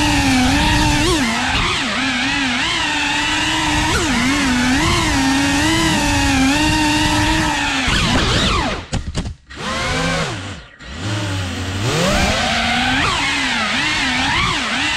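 FPV quadcopter's brushless motors whining, the pitch wavering up and down with the throttle. A little past halfway the whine drops sharply in pitch and level twice as the throttle is cut, then spins back up.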